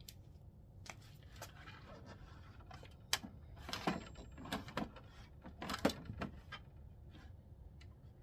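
Irregular clicks and knocks of plastic parts on an HP Smart Tank 5100 printer, thickest in the middle few seconds.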